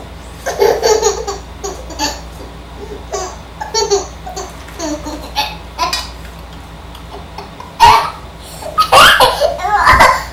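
A young child laughing in repeated short bursts, breaking into louder, high-pitched squeals of laughter near the end.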